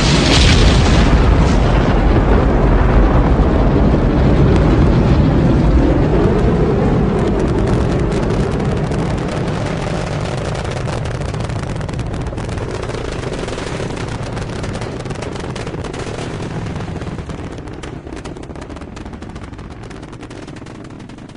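Rocket launch from an Apollo Saturn V liftoff: a loud, deep rumble of the engines that slowly fades away over the second half.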